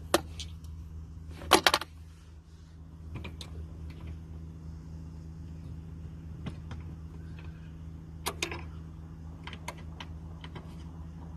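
Scattered metallic clicks and knocks of hand tools and bolts while roof clamp bolts are screwed in, with two louder knocks, one about one and a half seconds in and one about eight seconds in. A low steady hum runs underneath.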